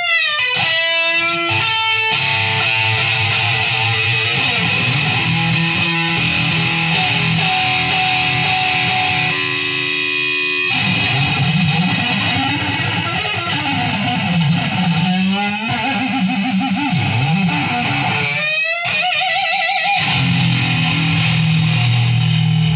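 Electric guitar playing single-note lead lines, with held notes and sweeping pitch slides and bends.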